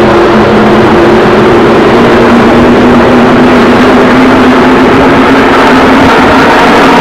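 Stock-car race engines running at speed around the oval, very loud, their engine note drifting slowly in pitch as the cars come by.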